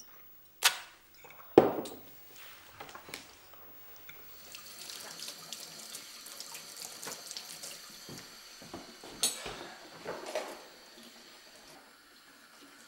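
Kitchen tap running into a sink during washing-up, a steady hiss of water, with dishes clattering twice near the end. Two sharp knocks come in the first two seconds.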